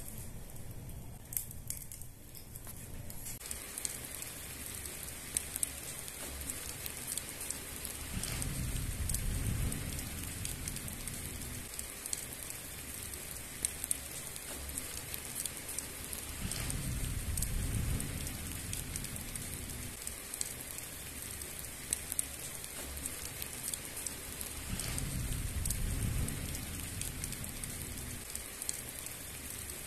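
Steady rain falling, with many sharp drip clicks; its hiss thickens a few seconds in. Three low rumbling swells rise and fade, each lasting a few seconds.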